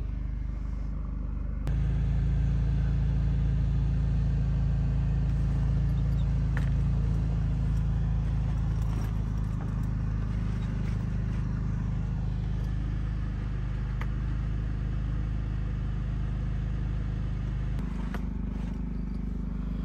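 Honda portable generator engine running with a steady low hum. It gets louder about two seconds in and eases back a little near the end.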